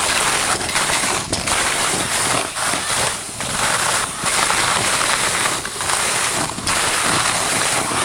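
Hammerhead sled sliding fast over snow, heard right at the sled: a loud, continuous rushing scrape that dips briefly now and then, mixed with wind on the microphone.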